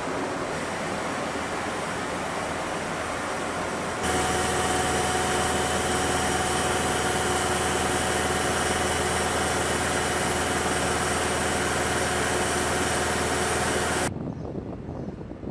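Shipboard high-voltage electrical machinery in a warship's engineering space: a steady drone. About four seconds in it grows louder and holds several steady tones, then cuts off sharply near the end, leaving a faint open-air hush.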